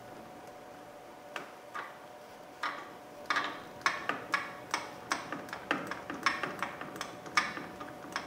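Ratchet with an 8mm socket clicking as it tightens a hose clamp on the coolant reservoir hose. A few scattered clicks at first, then a steady run of about three clicks a second from about three seconds in.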